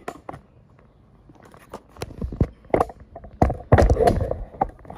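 Irregular knocks and low thumps of things being handled at a table, coming thicker and loudest about three and a half to four seconds in.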